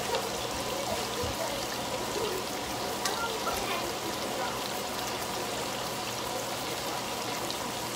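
Raw hamburger patties frying in oil in a skillet: a steady sizzle with small crackles.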